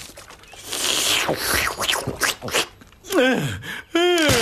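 Cartoon sound effects: a couple of seconds of rattling and scraping with many short clicks, then two short vocal exclamations with gliding pitch near the end.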